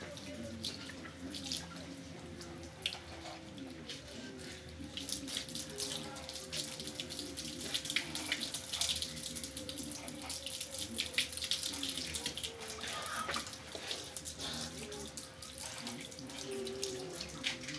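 Water from a garden hose spraying and spattering over cellular concrete blocks, louder through the middle. The blocks are being wetted to moist-cure them.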